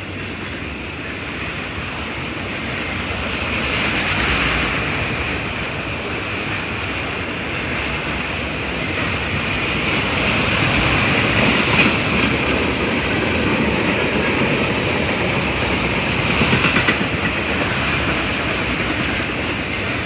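Freight train cars, mostly autoracks, rolling past close by: steel wheels running on rail, swelling louder and softer as cars go by, with a few sharp clicks near the end.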